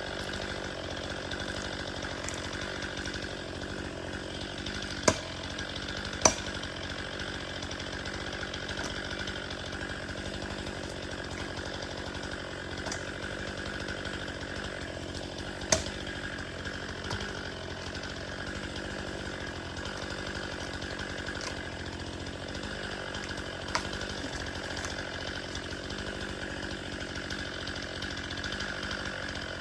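Gas chainsaw running steadily at an even level, with a few sharp knocks cutting through it, the loudest two about five and six seconds in.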